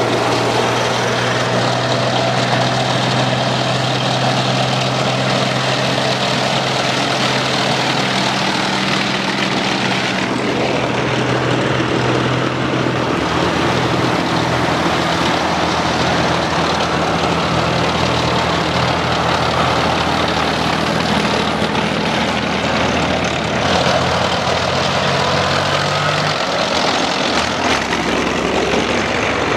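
Engines of a column of military vehicles, tracked armoured vehicles and a KamAZ truck, running steadily as they drive past one after another. The engine note changes as one vehicle gives way to the next.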